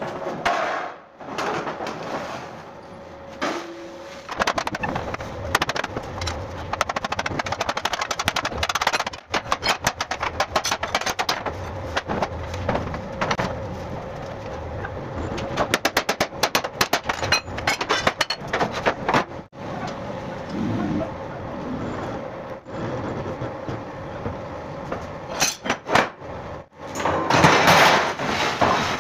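Steel truck chassis rail being worked under a hydraulic press: runs of quick, irregular metal clanks and knocks, densest through the middle, over a steady faint hum. A loud burst of clattering comes near the end.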